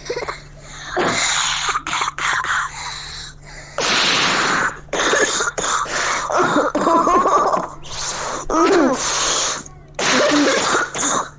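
Repeated coughing: a run of harsh bursts of about half a second to a second each, with short gaps between them. Several bursts partway through have a wavering pitch in them.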